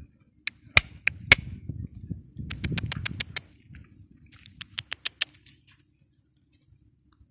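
A series of sharp clicks: a few single ones, then a quick run of them, then fainter ones, over a low rumble, dying away about six seconds in.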